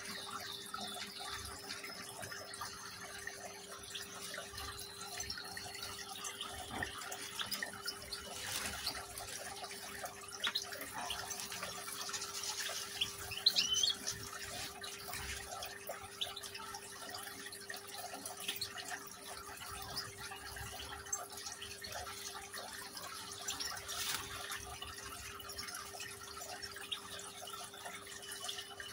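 Water trickling steadily in a small decorative rock fountain, over a steady low hum, with a few brief chirps from European goldfinches, the clearest about halfway through.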